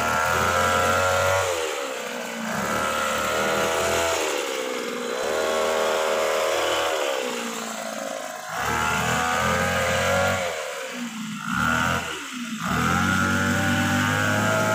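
Petrol hedge trimmer running as it trims bamboo, its engine revving up to full speed and dropping back about five times as the throttle is squeezed and eased.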